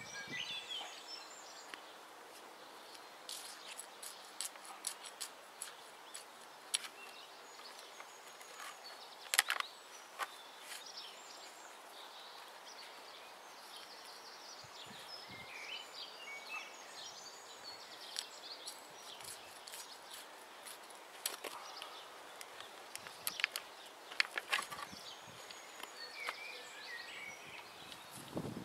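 Hands working gritty, stony soil around seedlings, giving scattered small clicks and scrapes of stones, the sharpest about nine seconds in. Small birds chirp now and then in the background.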